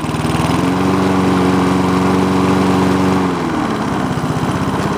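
Vintage Honda Harmony 215 lawn mower's single-cylinder engine running steadily with the choke on, with no knocking. A little over three seconds in it drops to a lower speed and keeps running.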